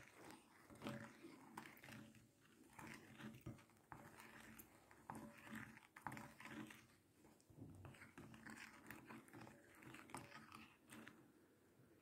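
Faint wet stirring of a spoon through thick clay paste in a glass bowl: soft, irregular scraping and squishing with light clicks of the spoon against the glass.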